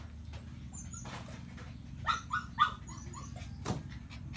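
Puppy whimpering: a quick run of about four short, high cries about two seconds in, followed a little later by a single knock.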